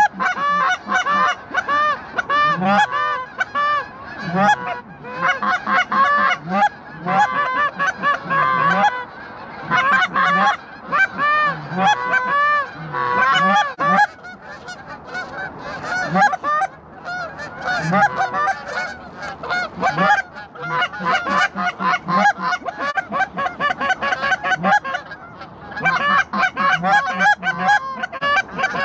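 Canada geese honking: many overlapping honks and clucks in a continuous chorus that eases briefly twice.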